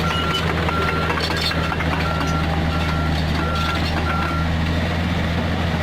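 Komatsu PC45 mini excavator's diesel engine running steadily while its travel alarm beeps in a regular on-off pattern, about seven beeps, stopping about four seconds in.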